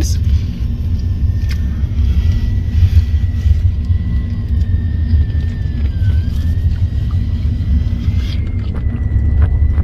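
Steady low rumble of a car, as heard from inside the vehicle, with a faint thin high tone running through it that dips briefly about six seconds in.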